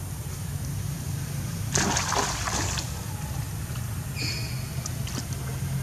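A splash in shallow muddy water about two seconds in, lasting about a second, as a young macaque drops off a stone block into the floodwater. A short high chirp follows about four seconds in.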